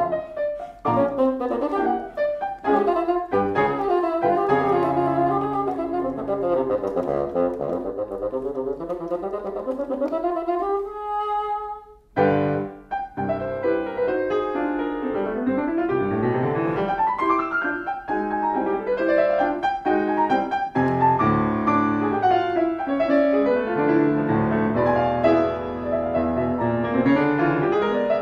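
Bassoon and piano playing a classical concerto movement, with the piano standing in for the orchestra. The music runs through scales and held notes, with a short break about twelve seconds in.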